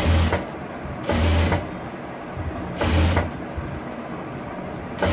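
Electric sewing machine running in three short bursts of about half a second each, stitching a blouse neckline's two raw edges together.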